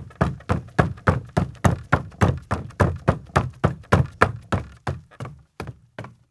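Footsteps of a man in sneakers on a wooden deck, a steady quick pace of about three steps a second with a dull thud to each. Near the end the steps grow fainter and more spaced out.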